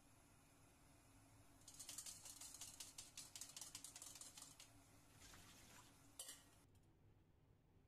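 Tap water running into a stainless mesh strainer of edamame pods as the strainer is shaken, making a quiet rattling, splashing patter for about three seconds. Near the end comes a single metal clink, then the sound cuts off suddenly.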